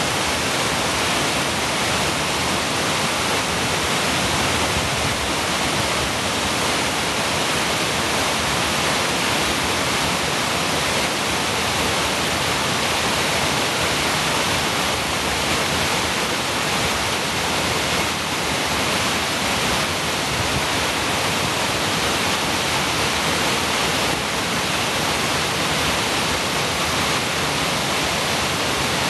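A creek waterfall cascading over rock ledges and fallen logs: a steady, even rush of falling water.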